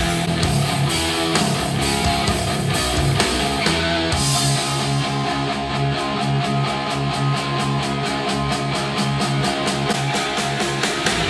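Rock music with guitar played back through JBL 305P MKII studio monitors and picked up by a recorder's microphone. About four seconds in the playback switches to JBL 104 monitors, and the tone of the music changes.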